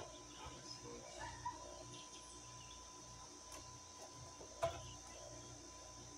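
A few light knocks and taps as a dry branch set in a cement-filled pot is handled and brushed with paint, the sharpest about four and a half seconds in. Behind them runs a steady, faint, high insect drone.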